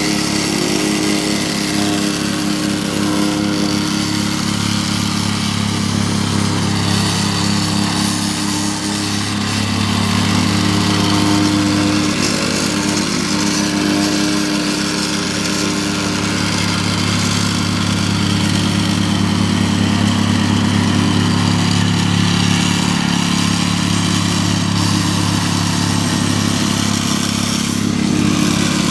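Vibratory plate compactor's small petrol engine running steadily as the plate vibrates over a bed of crushed gravel, compacting it.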